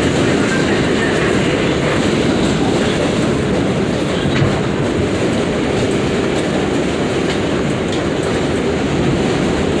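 New York City Subway 7 train running between stations: a steady rumble of wheels on the track with some clacking over rail joints.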